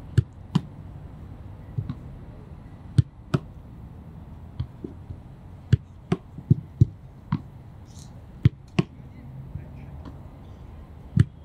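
Football kicked from close range and caught by a goalkeeper's gloves, again and again: sharp thuds, mostly in pairs about a third of a second apart, the kick and then the catch.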